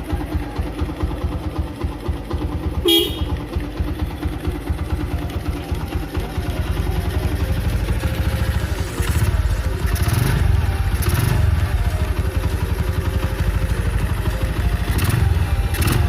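Honda Mega Pro single-cylinder motorcycle engine running with a fast low pulse from the exhaust, blipped louder twice, about nine to eleven seconds in and again near the end. There is a short sharp sound about three seconds in.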